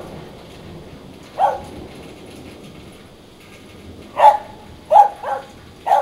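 A dog barking: one short bark about a second and a half in, then a quick run of four near the end.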